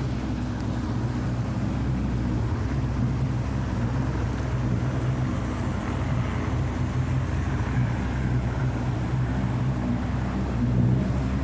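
Motorboat engine running at a steady speed, a low even hum, with wind on the microphone.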